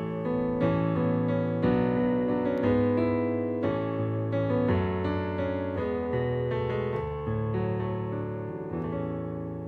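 Roland RD-2000 digital stage piano playing slow sustained chords, the closing of a worship song, getting gradually quieter.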